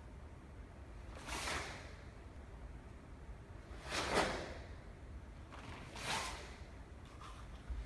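A karate uniform swishing sharply as blocks are thrown in a kata, three times: about a second in, the loudest about four seconds in, and again about six seconds in, over a low steady room hum.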